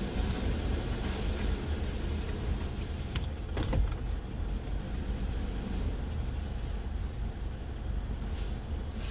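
Automated rollover car wash running, its gantry and spinning brushes heard through the windshield as a steady low rumble inside the car. A couple of knocks come about three and a half seconds in and another near the end, and faint, short high squeaks falling in pitch recur about every two seconds.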